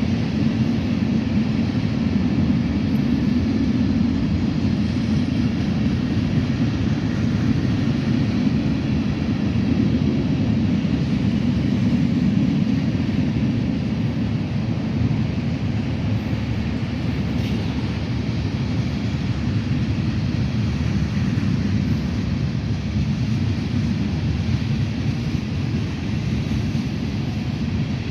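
Steady low rumble of a heavy vehicle running, with no starts, stops or sharp sounds.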